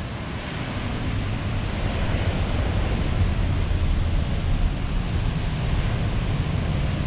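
Steady noise of ocean surf and wind, with a heavy low rumble, rising a little about two seconds in.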